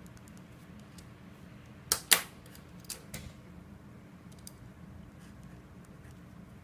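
Pens being swapped on a desk: two sharp plastic clicks close together about two seconds in, then a few lighter clicks and taps, over faint room tone.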